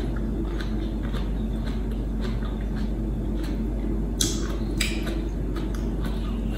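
Close-up chewing of crunchy raw vegetables: a steady run of crisp crunches about two a second, with two sharper clicks about four and five seconds in. A washing machine runs underneath as a low, even drone.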